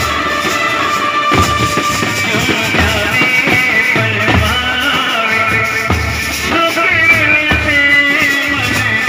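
Indian wedding brass band playing: a large bass drum beaten with a stick in a repeating low thump under a melody that bends and slides in pitch.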